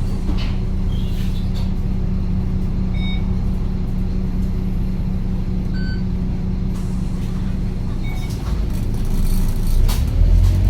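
Bus engine idling steadily, with two brief high beeps a few seconds apart; near the end the engine revs up with a rising whine as the bus pulls away.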